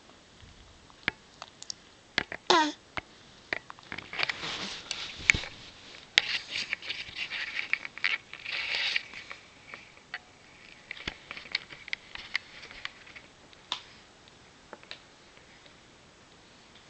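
Sniffing, snuffling breaths and small clicks, with one short squeaky call falling in pitch about two and a half seconds in.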